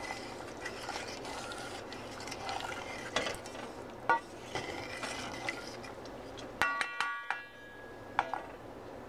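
Wooden spoon stirring milk in a metal saucepan, scraping across the bottom to work in the gritty sugar. A few knocks of the spoon against the pan make it ring briefly, with a quick run of them about two-thirds of the way through.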